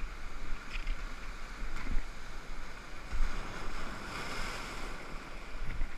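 Ocean surf washing ashore, with wind rumbling on the microphone and a few brief knocks of handling, the loudest about two seconds in.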